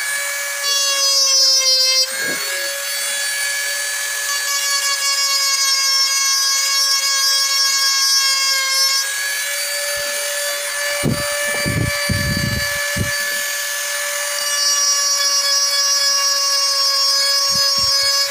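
Handheld electric rotary tool running at a steady high speed with a constant high whine while its bit grinds and carves into an ebony wood cup, with a few short, rougher scraping noises about eleven to thirteen seconds in.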